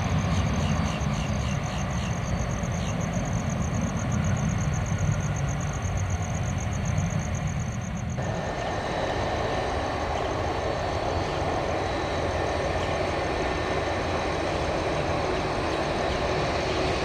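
Jet airliner engines running at an airport: a steady low rumble with a fast, high-pitched pulsing over it for the first half. About eight seconds in, the sound changes suddenly to a brighter, higher engine noise with a thin steady whine.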